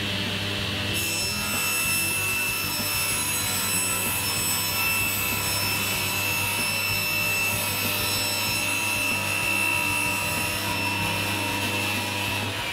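Table saw running, its blade being raised up through a new wooden zero-clearance insert and cutting its own slot. Over the steady hum and whine of the motor, a sawing noise begins about a second in and holds until near the end.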